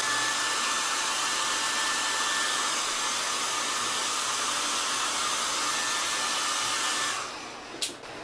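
Small handheld hair dryer blowing, a steady rushing hiss with a faint whine, switched off about seven seconds in; a short click follows near the end.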